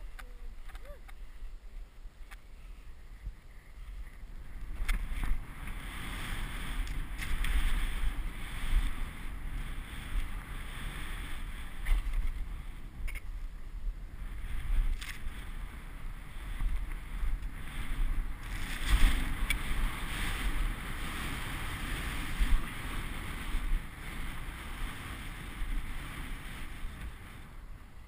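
Skis running through deep powder snow, a continuous swishing rush that grows louder about five seconds in as speed builds, over low wind buffeting on the microphone.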